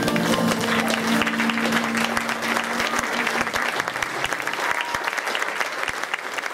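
Audience applauding at the end of a live jazz song. The band's last sustained chord fades out under the clapping about three seconds in.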